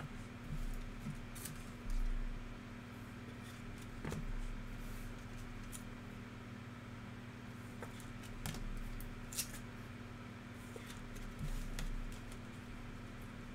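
Trading card packs and cards being handled: scattered light clicks and rustles, and a few soft bumps, over a steady low hum.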